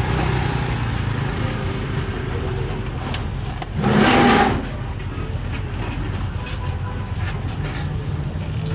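Steady low rumble of street traffic and engines, with a loud rushing, hiss-like burst lasting about a second near the middle.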